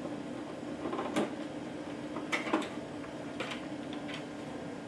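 Screwdriver loosening the front screws of a TU5400 sc turbidimeter's plastic housing and the lid being opened: about five light clicks and knocks of plastic over a steady low hum.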